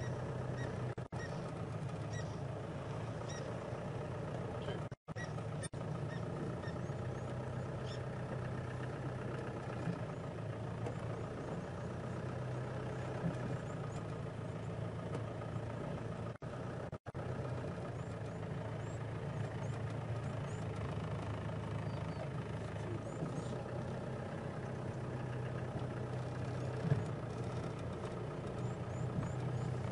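Open safari game-drive vehicle's engine running steadily as it drives off-road through long grass, a low even hum. The audio drops out briefly a few times.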